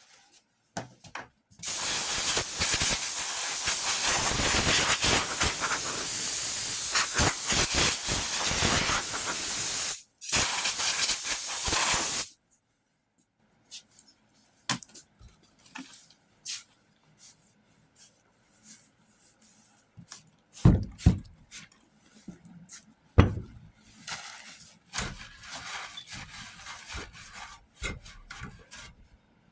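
Compressed air hissing from an air-hose blow gun as sanding dust is blown off a truck body panel: one long blast of about eight seconds, then a short second blast after a brief pause. After that come quieter clicks and a couple of sharp knocks.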